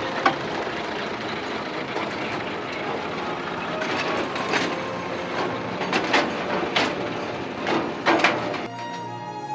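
Train of steel mine tubs running on narrow-gauge rails: a steady rumble broken by several sharp metal clanks in the second half. Music comes in just before the end.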